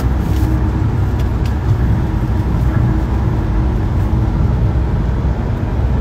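Steady low rumble of a tour bus's engine and running gear, heard from inside the passenger cabin.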